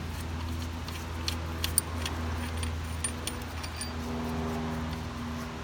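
Light metallic clicks and clinks of long steel bolts and hand tools being handled at an automotive AC compressor as it is unbolted, over a steady low hum.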